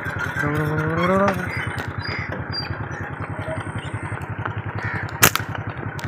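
Motorcycle engine idling with a fast, even pulse. A short rising voice sounds about half a second in, and a single sharp crack comes about five seconds in.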